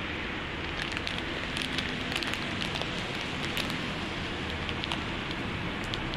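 Wet-street ambience: a steady hiss of rain and car tyres on the wet road, with scattered sharp crackling clicks through the middle.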